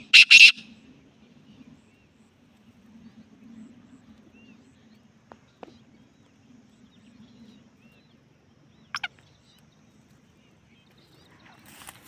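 Black francolin calling: the last harsh, grating notes of its call end about half a second in. A long lull with a faint low hum follows, then a short, sharp double note about nine seconds in.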